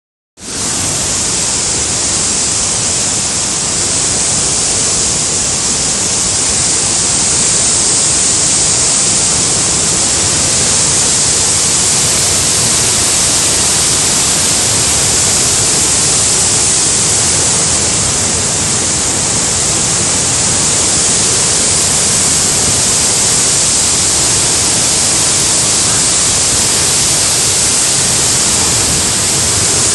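Kapila Theertham waterfall in flood, swollen by heavy rain: a loud, steady rush of pouring water with a strong hiss.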